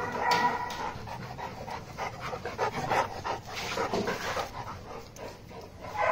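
A French Mastiff panting, a steady run of short breaths in and out.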